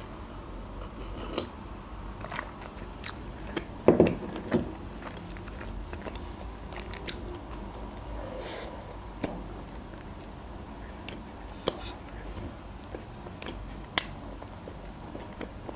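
Close-miked chewing and biting of a frosted cinnamon roll, with scattered sharp mouth clicks and smacks.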